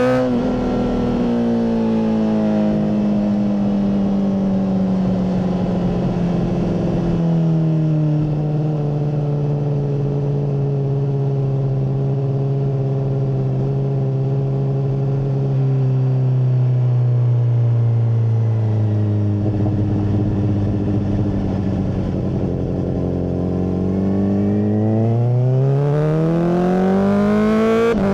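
Honda CBR600RR's inline-four engine running through a MIVV full exhaust, raw on-bike sound. The engine note falls gradually as the revs drop, with a small step down about seven seconds in, then climbs steeply as the revs rise again near the end.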